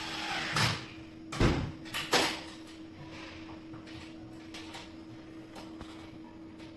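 Handling noise in a metal distribution board enclosure: a short scrape at the start, two sharp knocks about one and a half and two seconds in, then faint clicks and rustling as cables are pushed into place, over a steady low hum.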